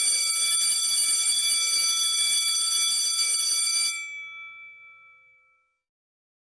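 Electric alarm bell ringing, its clapper hammering rapidly, for about four seconds, then cutting off and ringing out over a second or so.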